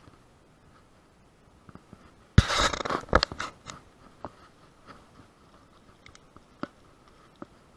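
Handling noise on a bike-mounted camera: a sudden burst of scraping and knocking, about a second long and starting a little over two seconds in, as the camera is turned from the sky back down to the road. A few scattered light clicks follow.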